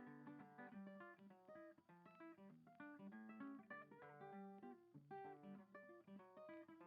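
Background music: acoustic guitar picking notes and chords at a steady pace.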